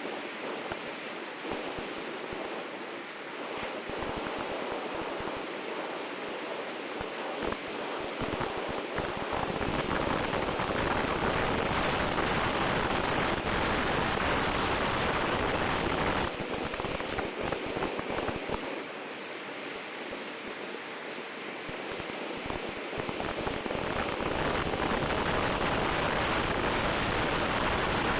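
Airflow rushing over the onboard camera's microphone of an X-UAV Mini Talon FPV wing in flight, with a faint steady tone underneath. It grows louder about ten seconds in, eases for a few seconds past the middle, then rises again.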